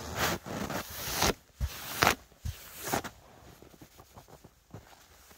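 Crunching and rustling movement or handling noises: several loud ones in the first three seconds, then fainter scattered clicks.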